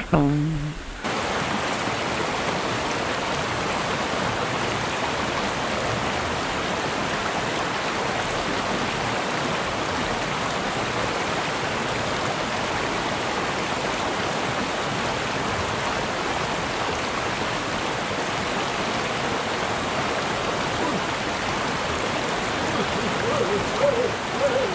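Shallow stream rushing steadily over rocks and small rapids.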